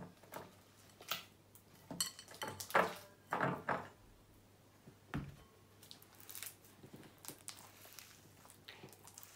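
A utensil clinking and scraping against a slime-mixing bowl as it is cleaned out, with several sharp knocks in the first four seconds, then only faint small handling sounds.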